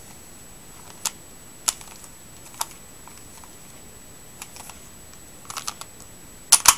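Plastic layers of a stickered 3x3 speed cube clicking as they are turned through a last-layer orientation algorithm: single sharp clicks about a second apart at first, then quicker clusters of clicks, the loudest pair near the end.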